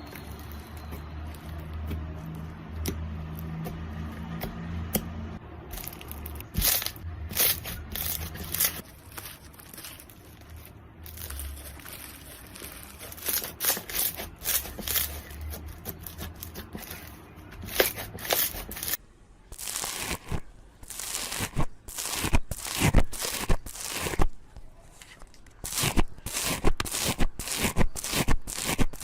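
Slime being squeezed and poked, giving off sharp crackling pops, sparse at first and then coming quickly in the second half. A low steady hum sits under the first part.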